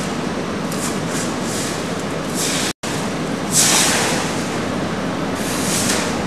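Steady rumbling, rushing roar with swells of hiss, loudest about three and a half seconds in, broken by a sudden brief dropout a little under three seconds in.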